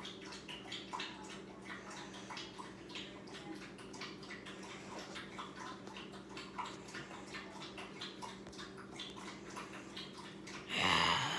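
Puppy lapping water from a ceramic bowl: a long, uneven run of quick wet laps and slurps. A louder noise comes near the end.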